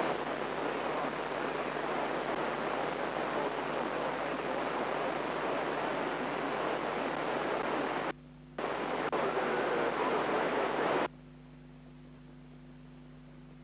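FM radio receiver hiss with the squelch open on a weak satellite downlink. The hiss cuts out briefly about eight seconds in, comes back, then stops abruptly as the squelch closes about eleven seconds in, leaving a faint low hum.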